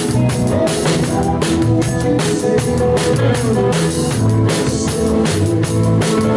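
Live rock band playing, led by a close drum kit beating a steady rhythm with stick hits on snare and cymbals over bass drum, with bass guitar and keyboard notes underneath.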